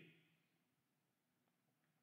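Near silence: room tone in a pause between spoken sentences.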